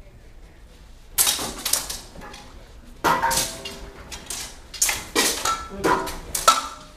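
Steel swords clashing in a cut-and-thrust melee: an irregular run of about a dozen sharp metallic strikes with short ringing tails, starting about a second in.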